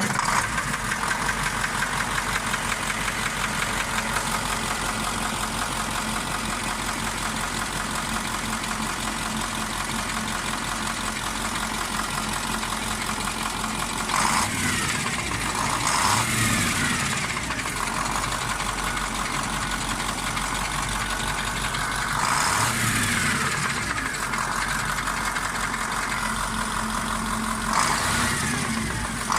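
KamAZ 740.13 V8 turbo-diesel idling with a knock, revved up briefly several times. The knock comes from cylinder 8, where the liner turned out to be scored by the piston.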